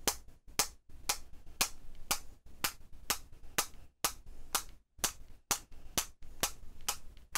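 A Posca acrylic paint pen and a stencil brush handle tapped together over and over, sharp clicks about two a second, splattering paint dots onto the card.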